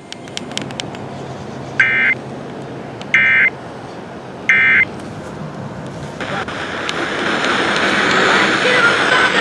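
Emergency Alert System end-of-message signal closing a broadcast severe thunderstorm warning: three short, identical bursts of digital data tones, a little over a second apart. A steady hiss comes up about six seconds in.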